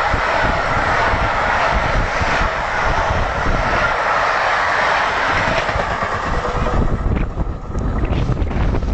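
A train hauled by the steam locomotive 60163 Tornado running past, with a steady rushing rumble of wheels on rail. The sound fades about seven seconds in, leaving a low rumble and a few knocks.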